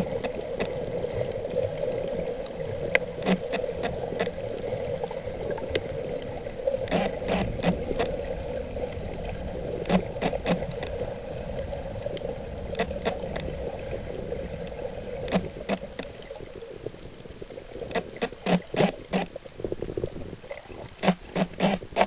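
Muffled underwater sound picked up by a snorkeler's camera: a steady hum with scattered sharp clicks and pops. In the last few seconds the clicks come thick and fast as the camera rises to the surface.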